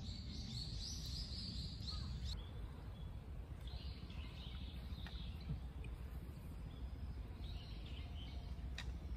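Forest ambience: a bird calling in quick repeated high notes for the first two seconds or so, then fainter scattered bird calls over a steady low background rumble.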